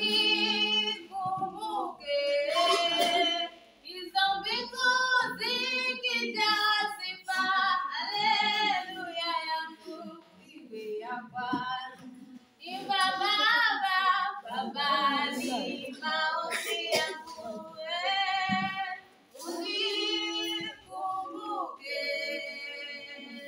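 A schoolgirl singing solo and unaccompanied. She sings in long phrases of held, wavering notes, with short breaths between them.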